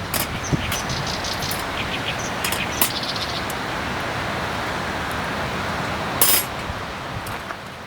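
Wood campfire crackling: a steady hiss broken by scattered sharp pops, the loudest about six seconds in.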